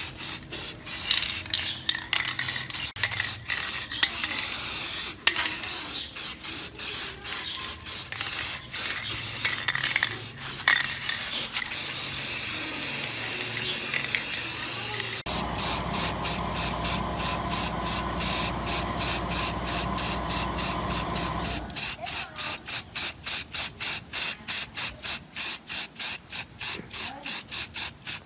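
Aerosol spray paint can hissing in quick repeated bursts as paint is sprayed. For about six seconds in the middle the hiss runs steadier, over a low hum.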